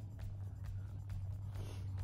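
Soft background music: a steady low note with light ticks.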